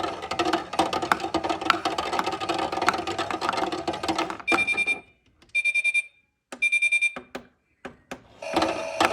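Toy Miele washing machine running, its small motor whirring with a fast rattle of clicks. About four and a half seconds in it stops and gives three short electronic beeps, then starts running again near the end.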